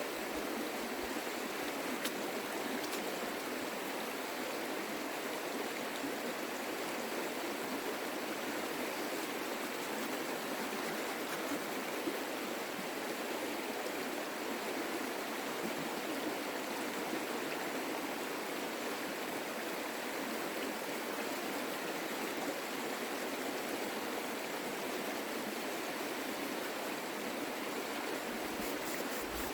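Creek water rushing in a steady, even flow, with two faint clicks about two and twelve seconds in.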